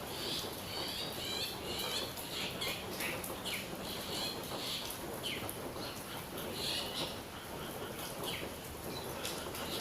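Birds singing and calling: clusters of short chirps and quick falling whistled notes every second or so, over a steady background hiss.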